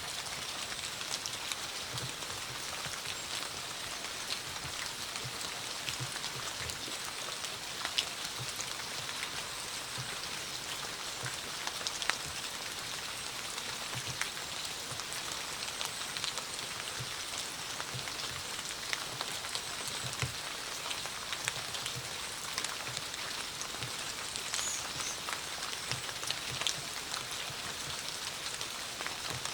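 Steady autumn rain falling, an even hiss with many separate drops striking close by, some as sharp ticks and some as dull low knocks.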